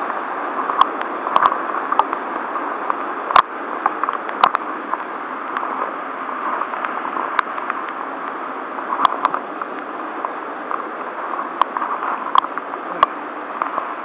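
Waterfall on a mountain stream running high after a typhoon: a steady rush of falling water close by, with sharp clicks and knocks scattered through it, the loudest about three and a half seconds in.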